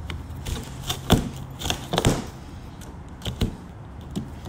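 Pliers prying and pulling metal staples out of a corrugated cardboard box: about half a dozen sharp clicks and scrapes, the loudest about a second in.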